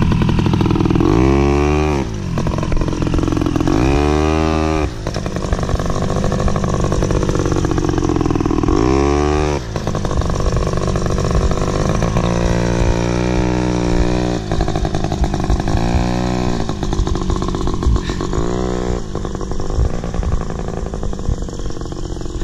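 ATV engines running on a rough dirt trail. The engine note rises and falls in about six revs as the throttle is opened and eased off.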